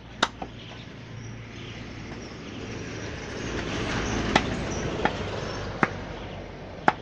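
Butcher's cleaver chopping meat, sharp single chops spaced irregularly: two close together at the start, then four more in the second half. Under them a rumbling rush of traffic noise swells and fades.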